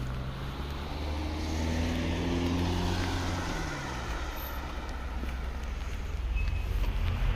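A motor vehicle driving past on a wet, slushy road: engine note falling in pitch as it goes by, with tyre hiss loudest a couple of seconds in. Another vehicle approaches near the end.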